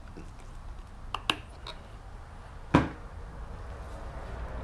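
A few light clicks, then one louder sharp knock about three seconds in, over a faint low hum.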